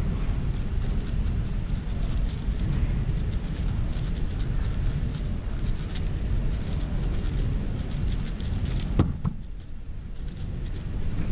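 MoYu AoShi WR M 6x6 speedcube being turned quickly during a solve: a fast, uneven run of clicks and clacks from its plastic layers, over a steady low rumble. One sharper click stands out about nine seconds in.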